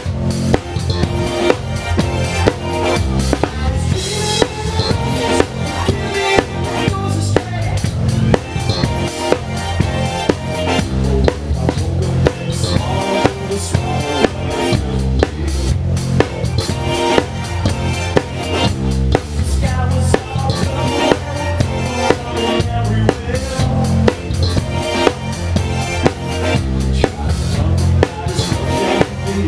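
Live band playing, picked up by a camera mounted on the drum kit, so the close drum kit dominates: bass drum, snare and cymbals over the band's sustained pitched parts.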